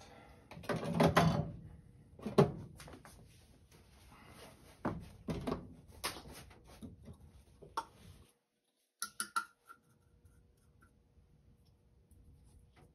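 Hand-handling noises of PVC drain pipe fittings being picked up, knocked together and rubbed with a paper towel: rustling with a few sharp clicks and knocks, going faint in the last few seconds.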